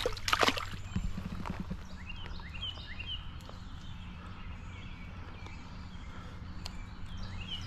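A brief burst of rustling noise at the very start, then short high bird chirps repeating over a steady low hum.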